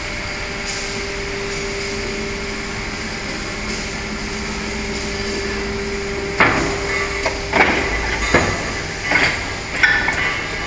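PVC rain boot injection moulding machine running with a steady hum and a held tone. About six seconds in, a run of sharp metallic clanks and knocks begins, roughly one or two a second, and the hum's tone cuts off partway through.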